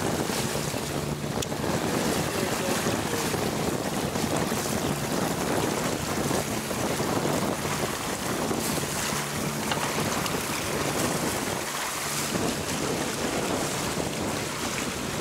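Wind buffeting the microphone over the rush of water along a moving yacht's hull, with a faint steady low hum underneath.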